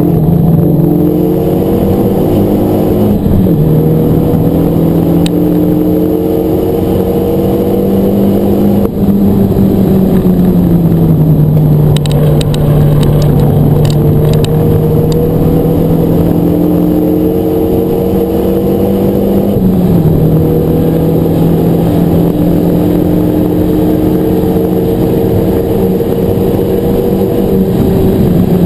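Renault Megane RS250's turbocharged 2.0-litre four-cylinder engine heard from inside the cabin while driven hard on track. Its pitch climbs slowly through each gear and drops sharply at the upshifts about three and twenty seconds in. It falls away more gradually around ten seconds in and again at the very end as the car slows.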